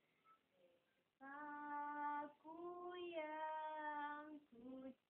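A small child singing a few long, drawn-out notes without clear words, each held for about a second or two. The longest note, in the middle, steps in pitch partway through.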